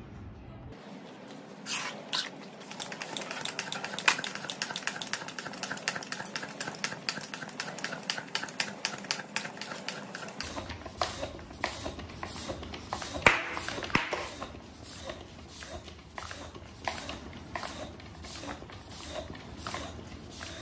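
Hand floor pump worked in quick, even strokes, each stroke pushing a hiss of air into a tubeless mountain-bike tyre as it is reinflated after sealant has gone in. One sharper, louder snap about thirteen seconds in.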